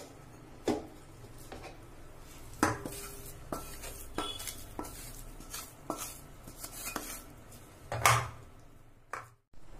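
Wooden spatula scraping and knocking roasted gram flour out of a non-stick kadhai into a wide steel plate: irregular knocks and scrapes of wood on metal, the loudest a little after eight seconds in.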